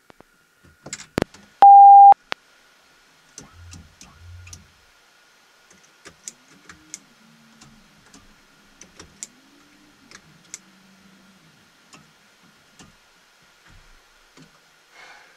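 Cockpit buttons and switches clicking on a Beechcraft Premier 1A panel, with one loud steady half-second electronic beep about two seconds in. A faint steady high whine runs underneath.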